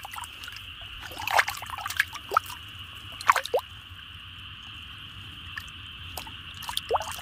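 Water dripping and plopping in a few short bursts, over a steady high-pitched insect chorus.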